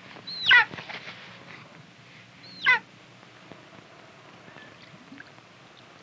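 Golden eagle fledgling calling twice, a short high call that slides down in pitch each time, the two about two seconds apart.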